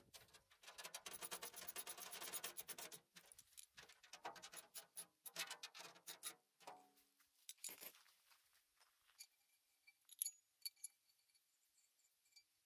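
A hand ratchet wrench clicking quickly while it tightens a nut and bolt on the shredder's steel hopper. After that come scattered metallic clicks and a few clinks as the parts are handled.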